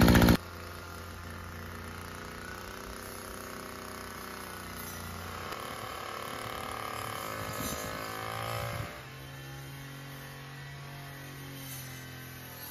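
Petrol brush cutter engine running, its pitch rising as it revs up for a few seconds, then dropping to a lower steady hum about nine seconds in.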